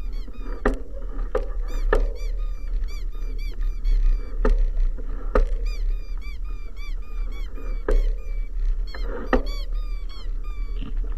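Bicycle riding along a rough country lane: a steady low wind rumble on the bike-mounted camera, sharp knocks each time the bike jolts over the patched surface, and a high chirping squeak repeating several times a second.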